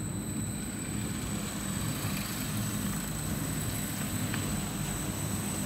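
Industrial brush sanding machine for wood doors running steadily: a continuous low mechanical hum with a thin, steady high whine over it.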